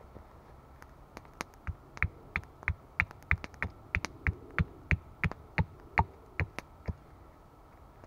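Axe chopping into a small piece of wood on a log chopping block: a run of evenly spaced knocks, about three a second, starting about a second and a half in and stopping near the end.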